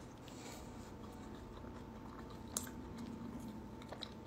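Faint close-mouthed chewing of a mouthful of burrito, soft and wet, with a small click about two and a half seconds in.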